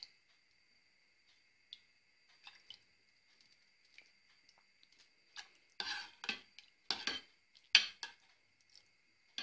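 Metal ladle stirring onion soup in a pot: soft liquid sounds and light clinks, then a handful of louder scrapes and knocks of the ladle against the pot in the last few seconds. A faint steady high whine runs underneath.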